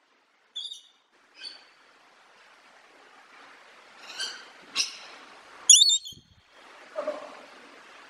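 Parrot giving short, sharp calls, about six in all, scattered and uneven, the loudest a little past the middle, over faint background hiss.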